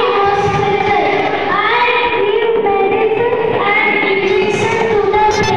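A child singing into a microphone, amplified, with notes held about a second each.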